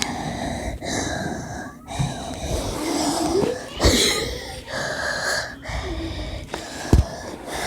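A person breathing heavily, in and out about once a second, with a wheezy squeak on some breaths and two sharp puffs about four and seven seconds in.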